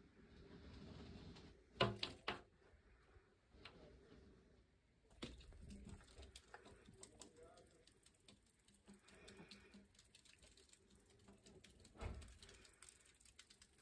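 Near silence: quiet room tone with a few light clicks and knocks, a cluster about two seconds in and another near the end.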